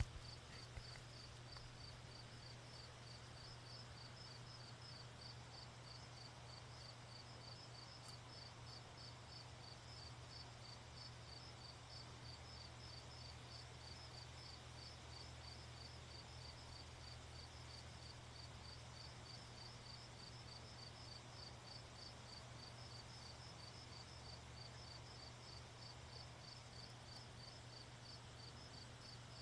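Faint insect chirping, an even run of rapid high pulses, over a low steady hum.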